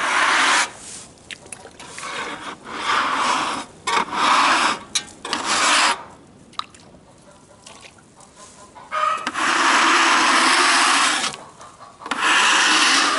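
Water splashing from a plastic bottle onto a rough-sawn walnut slab in about six bursts of half a second to a second each, with one longer splash of about two seconds past the middle.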